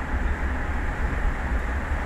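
Wind buffeting an exposed outdoor microphone over the open sea: a steady, unevenly fluttering low rumble with a hiss over it.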